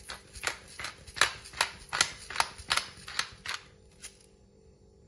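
Pepper mill grinding black peppercorns: a run of about ten sharp clicks, roughly two and a half a second, that stops about four seconds in.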